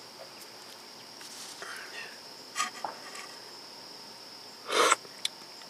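A steady, faint high-pitched whine or trill over low background hiss, with a metal spoon clinking lightly against a stainless steel stockpot a couple of times and one short louder scrape or clatter near the end.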